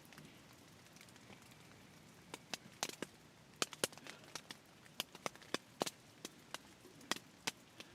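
A string of irregular sharp clicks and snaps, a few a second, starting about two seconds in.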